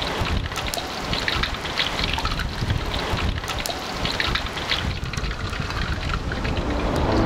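Hot oil sizzling and crackling in a wok as a crab omelet deep-fries over a charcoal fire, with a steady low rumble from the fire underneath.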